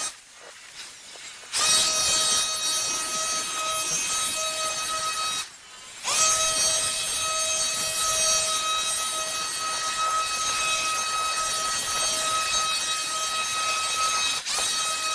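STIHL hedge trimmer running at full throttle in long bursts with a steady high whine, let off briefly near the start and again about five and a half seconds in, then let off near the end.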